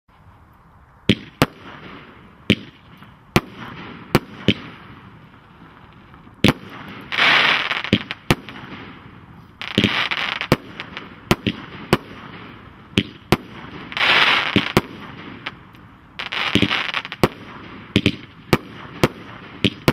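Black Cat 'Jorge' 25-shot firework cake firing: a string of sharp bangs from its shells bursting, broken by four spells of dense crackling, each about a second long, from its crackling-flower effects.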